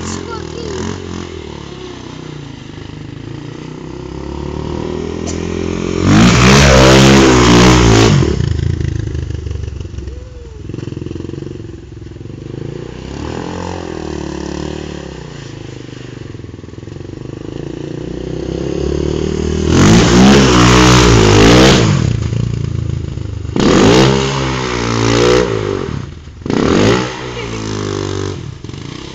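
Honda TRX400 quad's single-cylinder four-stroke engine revving as the quad is ridden around. It passes close twice, each time with loud revs that rise and fall in pitch, then gives three short bursts of throttle near the end.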